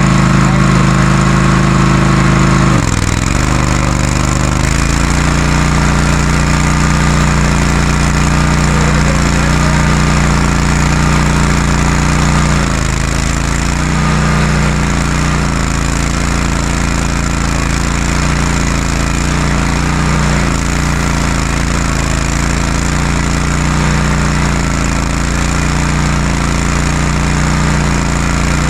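Stump grinder's engine running hard while the cutter wheel grinds into an oak stump, with a rattling, hammering chatter from the cutting. The engine note drops a few seconds in and dips again about halfway as it takes load.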